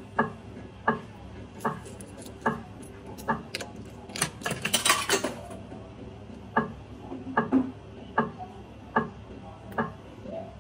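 Bar video slot machine playing as its reels spin: a sharp tick repeating about every 0.8 seconds, with a dense run of bright clinks about four to five seconds in.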